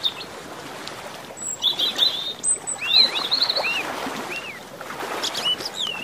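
Small birds chirping and twittering in several short runs of quick high notes, some sliding down in pitch, over a steady background hiss.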